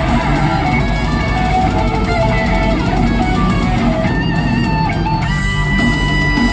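Metal band playing live, with distorted electric guitars to the fore over bass and drums.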